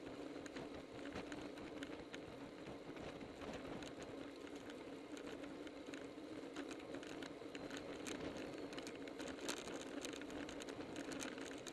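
Steady rushing of wind on the microphone and tyre noise from road bicycles riding fast in a tight group, with scattered short clicks that come more often in the last few seconds.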